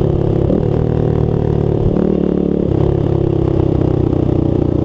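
Honda XR200R single-cylinder four-stroke engine running under way, its note changing about halfway through as the revs shift. It is an engine the owner complains is noisy, with the timing chain knocking.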